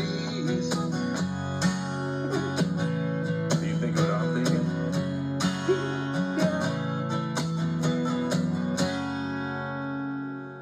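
Acoustic guitar strumming chords in a steady rhythm, ending about 9 seconds in on a final chord that rings on and fades.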